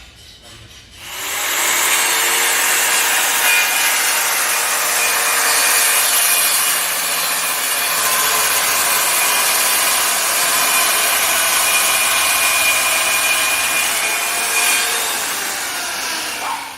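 Circular saw cutting a camphor wood board in one long cut: the motor spins up about a second in, runs steadily through the wood for about fifteen seconds, and winds down near the end.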